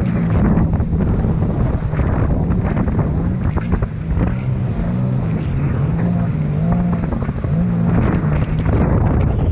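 Jet ski engine running at steady cruising speed, its hum wavering slightly in pitch, with wind buffeting the microphone and water rushing and spraying off the hull.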